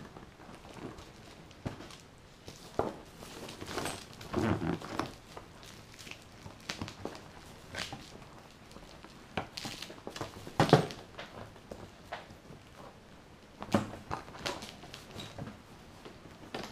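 Spearguns being fitted into the gun holders on an orange PVC spearfishing buoy: scattered handling clicks, knocks and rustles of plastic and PVC, the loudest knock about eleven seconds in.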